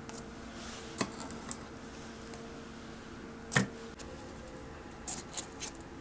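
Light taps and paper crinkles as muffins in paper baking cups are set down on a wire cooling rack: a few scattered clicks, one firmer knock about midway, and a quick cluster near the end, over a faint steady hum.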